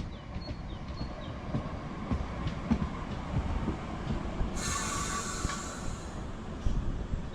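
A train running through a station platform: a steady rumble with the clatter of wheels over the rails, and a loud hiss for about two seconds from halfway through.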